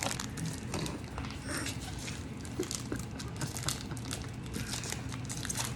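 Pokémon booster pack foil wrappers and trading cards being handled: light crinkling of foil with many small irregular clicks and rustles as cards are flipped and shuffled.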